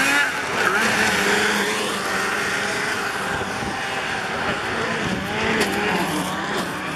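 Several racing snowmobiles' engines revving hard, the pitch rising and falling as the sleds pass over the jumps.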